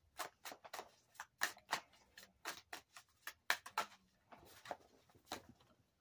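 A tarot deck being shuffled by hand: the cards give a run of soft, irregular clicks, about two or three a second.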